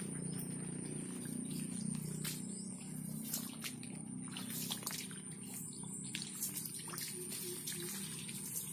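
Footsteps and rustling through wet, overgrown grass, with scattered sharp clicks and a steady high-pitched whine behind.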